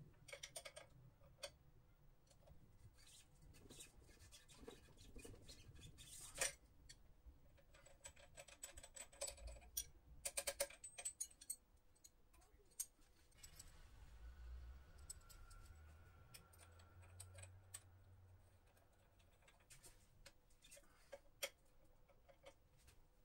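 Near silence, broken by scattered faint clicks and light knocks. A sharper click comes about six seconds in, and a quick cluster of ticks around ten seconds.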